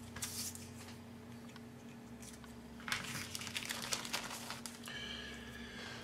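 Thin clear plastic bag crinkling and tearing as a model kit sprue is slit free and pulled out of it. It comes in short bursts of rustling, a brief one at the start and a longer stretch in the middle.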